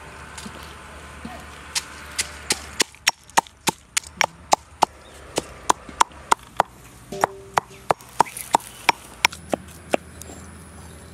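Pestle pounding in a small stone mortar: a steady run of sharp knocks, about three a second, starting about two seconds in and stopping near the end.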